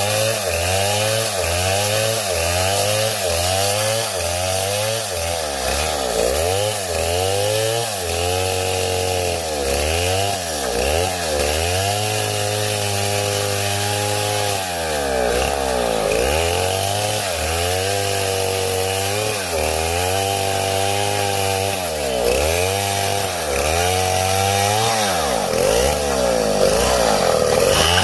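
Two-stroke chainsaw running while cutting wood, its engine pitch repeatedly dipping and picking back up every second or two under the cutting load, with a couple of steadier stretches at high revs.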